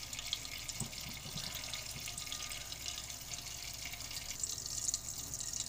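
Oil and a little butter sizzling lightly in a steel kadhai as the butter melts: a steady hiss with small crackles.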